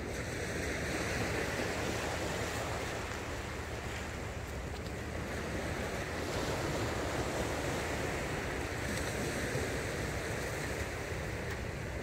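Small surf waves washing onto a sandy beach, the wash rising and falling in slow swells every few seconds, with wind on the microphone.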